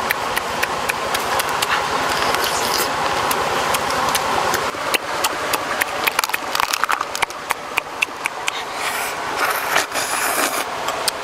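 Cooked crabs being broken apart and eaten by hand, shells cracking in a run of sharp clicks and crunches that come thickest in the middle, over the steady rush of a stream.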